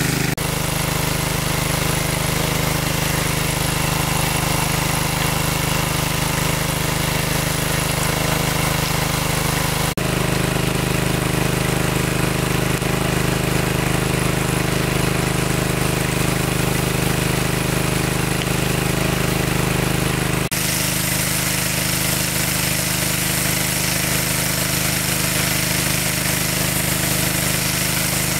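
A small engine running steadily. The sound changes abruptly about ten and twenty seconds in, at edits between shots of similar engine noise.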